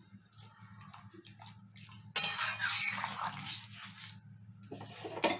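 Metal spatula stirring chunks of vegetable in a pan of watery stew: a wet sloshing and scraping that starts about two seconds in and lasts about two and a half seconds, with a sharp clink against the pan near the end. A low steady hum runs underneath.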